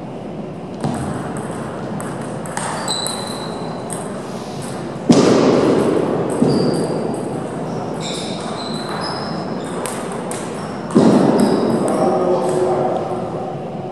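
Table tennis balls clicking off tables and bats in a large hall, many sharp ticks, some with a short high ping. Two sudden louder bursts of noise break in about five and eleven seconds in and fade over a second or two.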